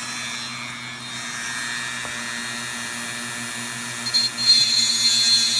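Dremel rotary tool with a cutting stone running with a steady high whine, grinding down a dogface puffer's overgrown dental plate. About four seconds in it turns louder and harsher as the stone bears on the tooth.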